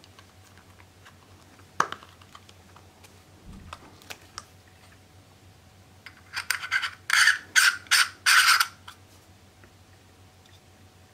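Small metal astronomy parts handled by hand: a sharp click about two seconds in, then four or five short, loud scraping rasps a little past halfway as a 2-inch filter is screwed into the threads of a metal nose piece.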